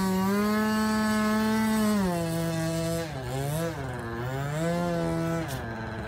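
Remote-control model airplane's motor and propeller running with a buzzing whine. It holds steady, drops in pitch about two seconds in, rises and falls with the throttle over the next few seconds, and cuts off shortly before the end.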